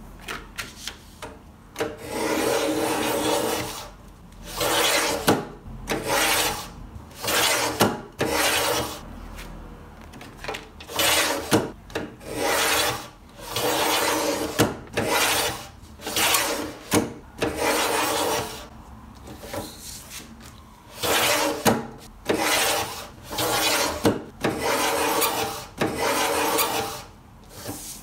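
Olympia rotary paper trimmer cutting a stack of printed card: the cutting head rasps along its rail in repeated strokes about a second long, back and forth many times, with sharp clicks between strokes.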